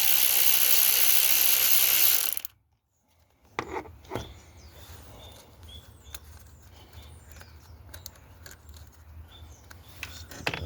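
A power ratchet runs steadily for about two seconds, spinning a fastener on a Mercedes V6 diesel engine, then stops abruptly. After a short silence come faint clicks and knocks of parts and tools being handled.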